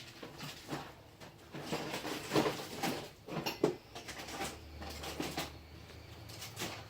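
Irregular clicks, clinks and knocks of hand tools being handled and rummaged through, with a low steady hum coming in about halfway.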